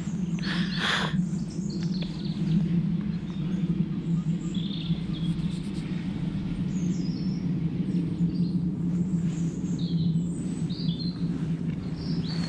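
A standing steam locomotive gives off a steady low roar of escaping steam, with small birds chirping now and then.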